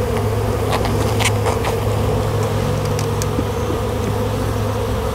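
A mass of honeybees from an opened package buzzing in a steady, even drone, with a few light clicks in the first couple of seconds as the cork of the queen cage is picked at.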